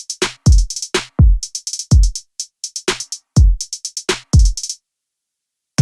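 Background music: a drum-machine beat of deep kicks that drop in pitch and crisp hi-hat ticks, stopping near the end.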